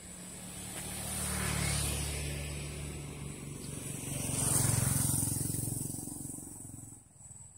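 A motor vehicle's engine passing by: it grows louder, swells twice with the loudest point a little past halfway, and fades out near the end.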